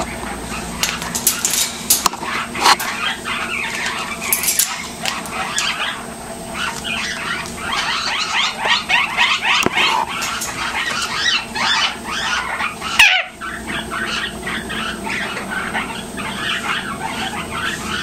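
Male Eclectus parrot chattering close to the microphone: a continuous run of short, rapid squeaky calls, with a few sharp clicks in the first few seconds.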